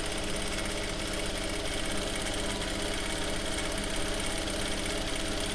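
Jack F4 direct-drive industrial lockstitch sewing machine running steadily, stitching denim at its shortest stitch-length setting.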